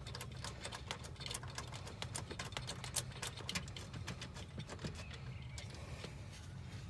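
Quick, irregular light metallic clicks and ticks of hand work on the starter's top mounting bolt, thinning out after about five seconds, over a low steady hum.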